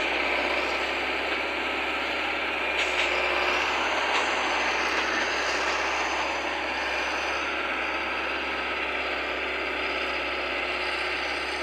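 Diesel engine of a three-wheeled sugarcane grab loader running steadily while it grabs and lifts cut cane onto a truck. A couple of faint knocks come about three and four seconds in.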